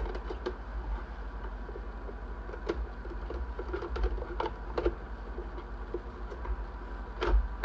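Plastic housing parts of a Keurig coffee maker being handled and pressed back together: scattered light clicks and taps, with a louder run of clicks near the end, over a steady low hum.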